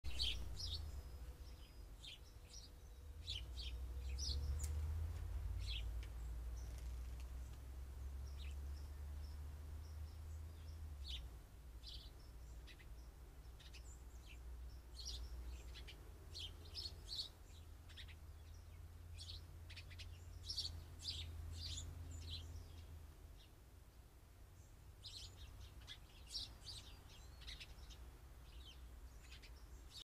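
Wild songbirds chirping in many short, high, overlapping calls, busiest in the middle stretch and again near the end, over a faint steady low rumble.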